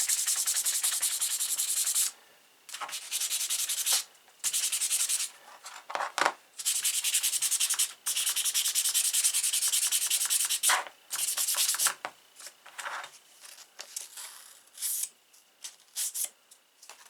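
Fine 1000-grit sandpaper rubbed rapidly back and forth by hand on a pocketknife's steel blade to clean it up. The strokes come in long bouts with short pauses, then in shorter, scattered strokes over the last few seconds.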